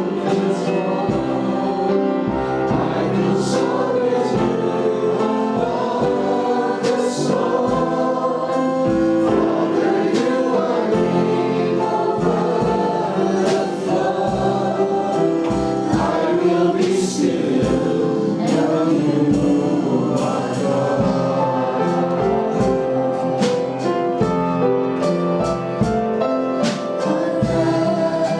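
Worship music: a choir or congregation singing with a band, at a steady level with a regular beat.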